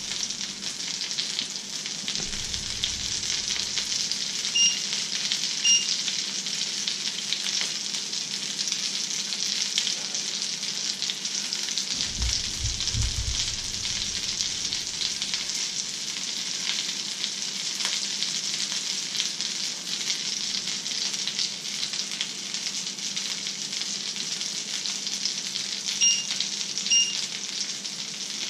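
Fish fingers and egg frying in a pan: a steady sizzle with light crackling. A pair of short electronic beeps sounds twice, about five seconds in and near the end.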